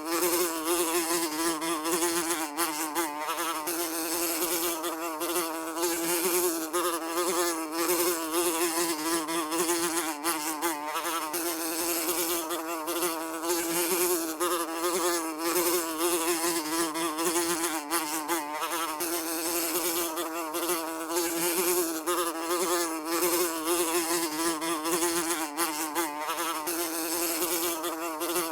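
Housefly buzzing continuously in flight, a steady drone whose pitch and loudness waver slightly as it moves.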